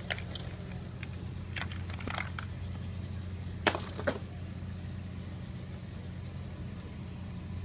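Steady low hum in the background, with a few brief clicks and scratchy knocks from pencils and hands working on drawing paper; the sharpest pair comes a little past the middle.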